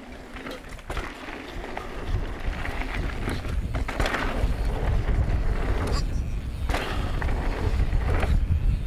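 Mountain bike riding fast down a rough trail: a low wind rumble on the microphone grows as speed builds, with tyres and frame rattling and knocking over rocks and bumps every second or two.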